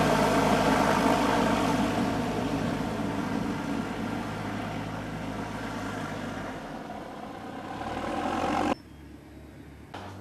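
Socata Rallye 110 ST light aircraft's piston engine running as the plane taxis away, fading gradually and swelling a little before cutting off suddenly near the end.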